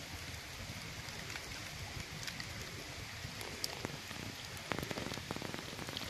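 Small wood fire of sticks and dry leaves crackling steadily, with a run of sharper pops about five seconds in.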